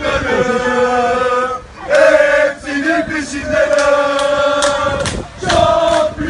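Football supporters, a group of men, chanting a terrace chant in unison. The chant is sung in long held notes, phrase by phrase, with two short breaks for breath.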